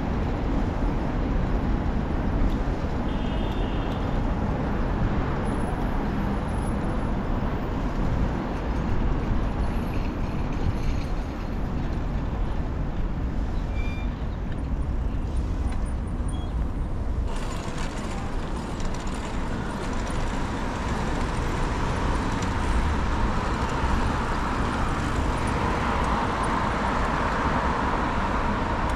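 Steady city road traffic noise, a continuous low rumble of motor vehicles on the street.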